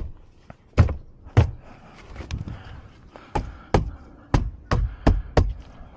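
A run of sharp knocks and thumps on a car door and its trim during reassembly, about nine in all: a few spaced ones, then six in quicker succession.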